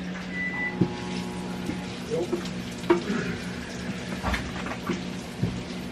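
Scattered light knocks and clinks of dishes and utensils being handled at a kitchen counter, over the steady hum of a running microwave oven.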